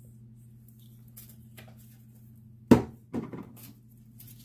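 A single sharp knock about two-thirds of the way through, followed by a few lighter knocks, over a steady low hum.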